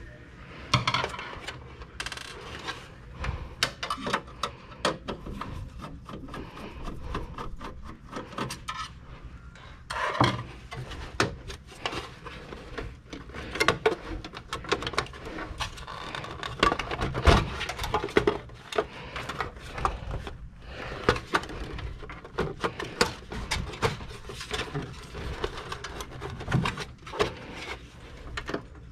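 Sheet-metal chassis and plastic parts of a Dell Precision 7920 workstation tower being handled during disassembly: irregular clicks, knocks and scraping, with one louder knock about midway.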